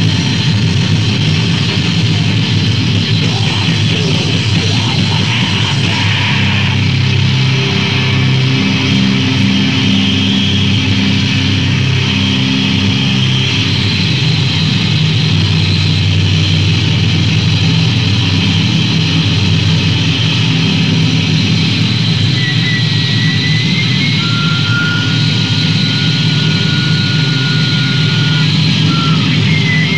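Noisecore band on a lo-fi rehearsal tape: a loud, unbroken wall of distorted guitar noise with no clear song structure. A thin, high whistle sounds in the last third.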